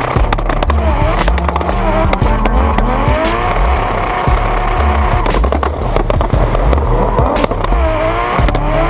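Dubstep background music with a pulsing bass line and sharp beats.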